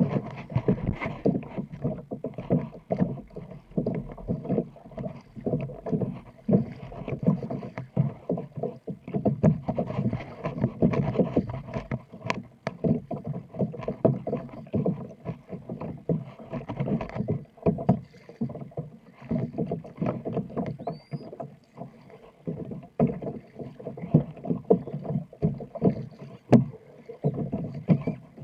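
Water splashing and sloshing against a plastic kayak's hull as it is paddled through small waves, with the paddle blades dipping in, in many uneven splashes.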